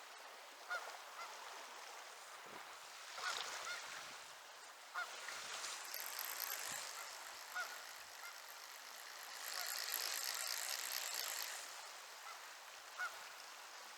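Goose-like honking: short single calls repeated every second or two, over a steady rushing noise that swells for a couple of seconds near the end.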